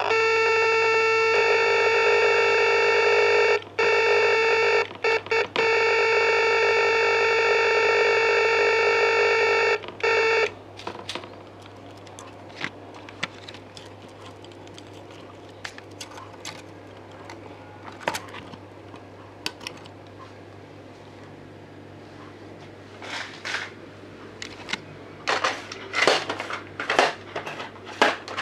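A simple electronic tone generator, switched through a keyboard switch array, sounds a steady buzzy tone. The tone cuts out briefly a few times and stops about ten seconds in. Scattered clicks follow, becoming a run of louder clicks and rustles near the end.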